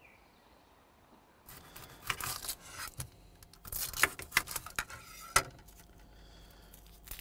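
Kitchen knife cutting a red onion on a chopping board: an irregular run of sharp clicks and crunches as the blade goes through the onion and taps the board, starting about a second and a half in.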